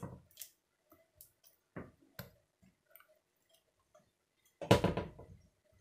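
Scattered light clicks and taps of cookware on a gas stove, with one louder clatter near the end.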